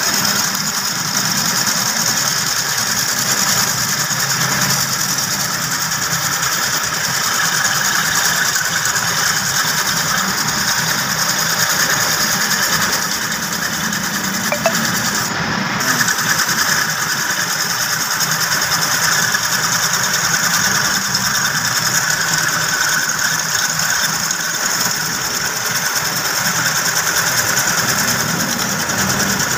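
Wood lathe running steadily, with a hacksaw blade held against the spinning wooden wheel: a continuous scraping hiss over the motor's hum.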